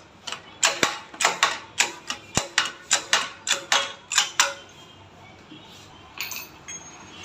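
A run of sharp, light taps, about three to four a second, that stops about four and a half seconds in, followed by one faint tap later.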